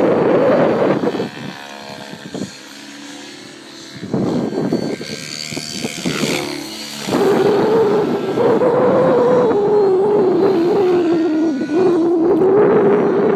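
Electric 700-class RC helicopter (Synergy E5 Stretch on 12S with 695 mm blades) flying aerobatics, its rotors giving a loud buzzing drone that wavers in pitch. The drone falls away for a few seconds about a second in, leaving a fainter whine, then returns with a high swish and carries on wavering.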